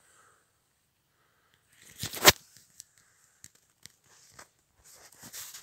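Footsteps crunching in deep snow: one loud crunch about two seconds in, then scattered sharper crunches, with more crunching near the end.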